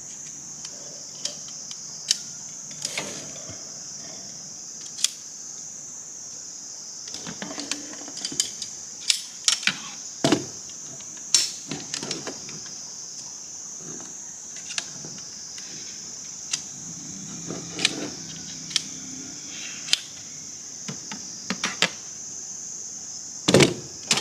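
Scattered clicks, taps and knocks of camp gear being handled, over a steady high-pitched insect drone in the forest.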